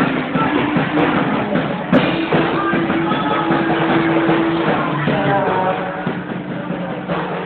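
Live rock band playing: drum kit, bass and lead electric guitars and keyboard, with sustained notes and sharp drum hits.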